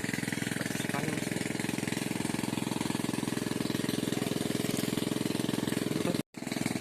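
A small engine running steadily with a fast, even chugging; the sound cuts out for a moment about six seconds in.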